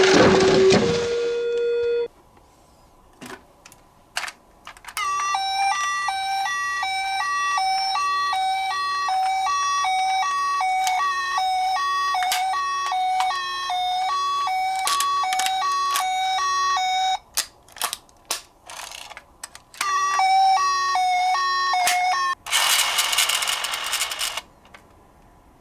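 Toy ambulance's electronic two-tone "pee-poh" siren, a high and a low note alternating about one and a half times a second, running for about twelve seconds and briefly again later. Between the runs come sharp clicks and knocks of the plastic toy being handled, and a two-second burst of noise near the end.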